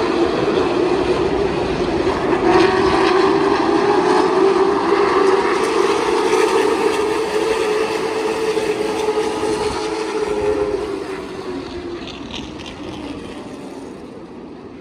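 A field of Late Model stock cars running together in a pack, their engines merging into one loud drone. It swells about two seconds in as the pack passes close, then fades away over the last few seconds.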